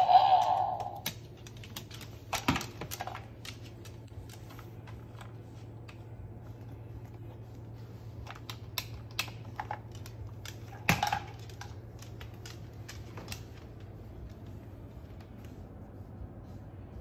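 Irregular light clicks and taps from a Moluccan cockatoo's beak and claws on a hardwood floor and toys, over a faint steady low hum. A loud honk-like sound fades out about a second in, and a louder click with a brief squeak comes about two-thirds of the way through.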